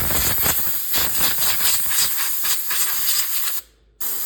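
Compressed air blow gun hissing in a long, fluttering blast as it blows dust off garage door hardware; it cuts off briefly near the end and then starts again.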